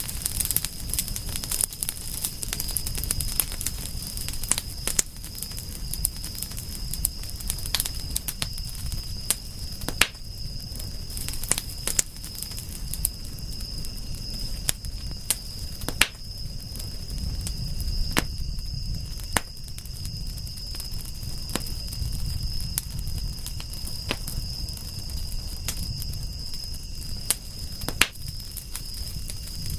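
Wood fire crackling, with frequent sharp pops over a low rumble. A steady high-pitched tone runs underneath.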